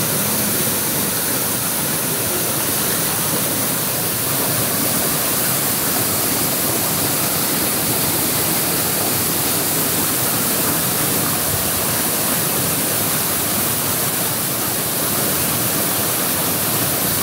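Small waterfall pouring and splashing over rock slabs close by: a steady, loud rush of falling water and spray.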